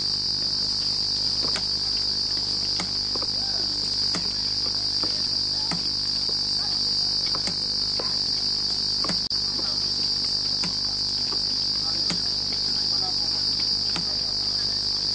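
Insect chorus in the forest: one continuous high-pitched drone that holds steady throughout, with scattered small clicks.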